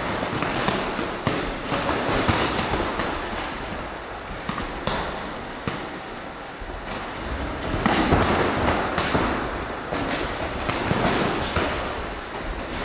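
Boxing gloves landing punches in sparring: an irregular run of sharp thuds and slaps on gloves and padded headgear.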